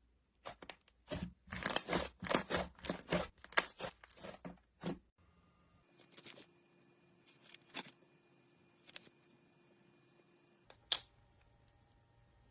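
Slime being worked with clay, making dense crackly clicking and popping for about five seconds, then only scattered clicks with one sharp pop near the end.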